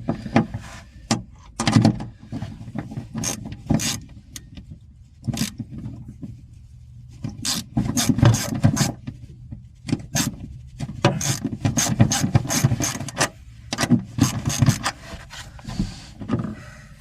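Socket ratchet wrench clicking in irregular runs as a nut is tightened down on a rod-holder mounting bolt, with short pauses between strokes.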